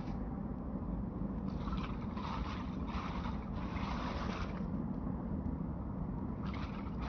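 Repeated scraping strokes of hand cleanup, a run of them about a second and a half in and another near the end, over a steady low rumble.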